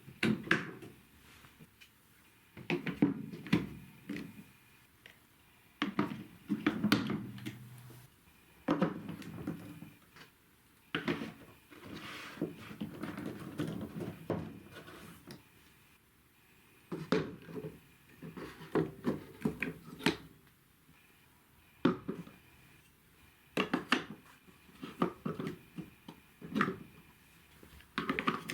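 Marbles rolling and clattering down plastic TrixTrack marble-run track, in repeated bursts of clicks, knocks and rolling rumble with short quiet gaps between runs.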